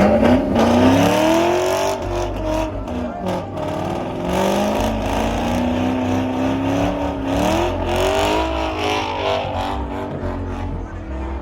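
Car engine revving hard and repeatedly, its pitch climbing and dropping several times.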